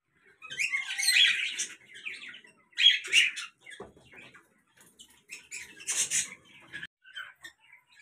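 Cockatiels calling: harsh, screechy calls in three loud bursts, about a second in, around three seconds and around six seconds, with shorter chirps in between.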